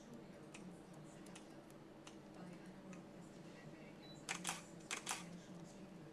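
Fingertips pressing and rubbing a square of paper onto a helmet shell, with faint light scratches over a low steady hum. About four seconds in come four sharp clicks in two quick pairs.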